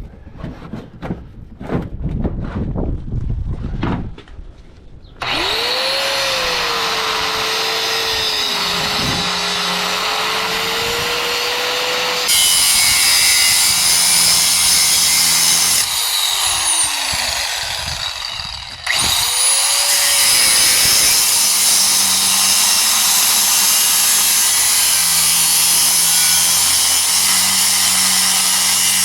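Several knocks, then a power cutting tool spins up and runs loudly, cutting the steel shell of a scroll compressor. Midway it winds down with a falling whine, then spins up again and keeps cutting.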